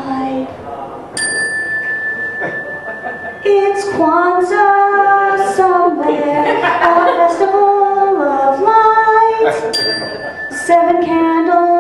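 A woman singing unaccompanied, holding and bending long notes. A bell-like ring is struck about a second in and lingers under the singing for several seconds, and is struck again near the end.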